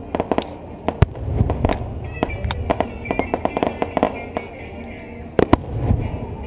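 Aerial fireworks shells bursting: a steady run of sharp pops and crackles, with deep rumbling booms about a second in and again about five and a half seconds in.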